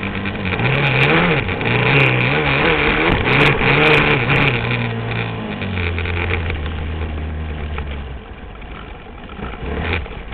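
Onboard sound of a supermoto racing motorcycle's engine under race load, its pitch rising and falling as it revs up and down. From about six seconds in it holds a steadier, lower note, then drops back quieter about eight seconds in, with a brief louder rev near the end.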